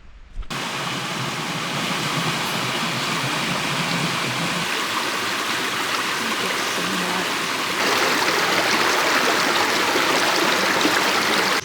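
Fast-flowing woodland stream rushing: a steady, even roar of water that starts abruptly and gets louder about eight seconds in.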